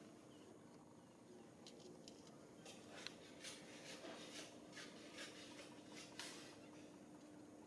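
Faint soft crunching, about two to three times a second for a few seconds, over a low steady hum: monkeys chewing food.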